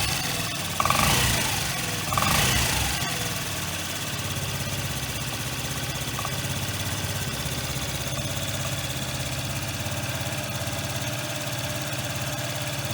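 Honda Dunk 50 scooter's 50 cc four-stroke single-cylinder engine revved briefly twice, then idling steadily. It is running with an abnormal engine noise.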